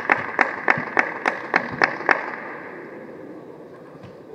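Rhythmic hand clapping, about three claps a second, that stops about two seconds in. After that, only the faint steady hum of the hall remains.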